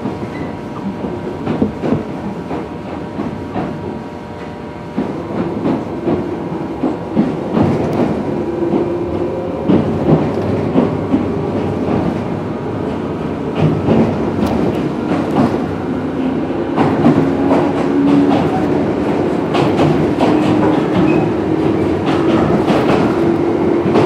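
Toyama Chiho Railway 17480 series electric train (ex-Tokyu 8590 series) running along the line: wheels clicking over rail joints in a repeating clickety-clack, with a motor hum that grows louder and rises slightly in pitch about five seconds in.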